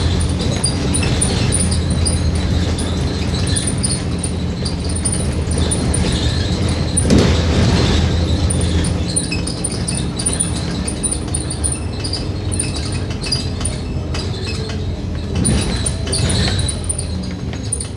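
Scania K310UD double-decker bus under way, heard from inside: its five-cylinder diesel engine runs steadily, with light high rattles from the body and a jolt about seven seconds in. The engine note drops away near the end as the bus eases off.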